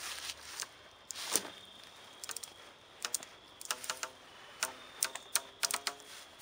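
Dry leaves rustling underfoot, then from about three seconds in a run of sharp ticks and short creaks as a homemade canvas hammock on wooden cross poles and cord lines takes a person's weight.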